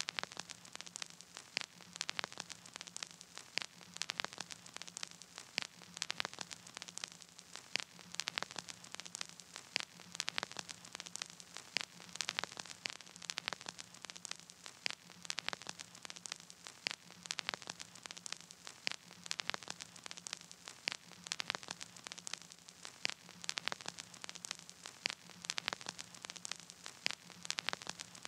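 Crackling static: a steady hiss full of dense, irregular clicks and pops, over a faint low hum. No music is playing.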